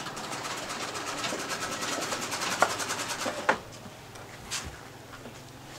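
Sewing machine stitching in a fast, even clatter that stops about three and a half seconds in, with two sharp clicks just before it stops.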